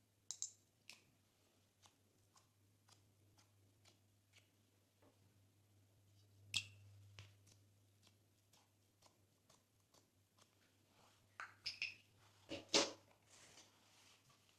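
Small clicks and taps of slime and its containers being handled on a table, scattered and quiet, with a cluster of louder crackly clicks about twelve seconds in, over a low steady hum.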